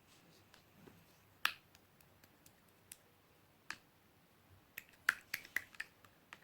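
White slime with its air bubbles worked out being pressed and squeezed by hand, giving sharp, scattered clicks and pops: a single one about a second and a half in, another a couple of seconds later, then a quick run of several near the end.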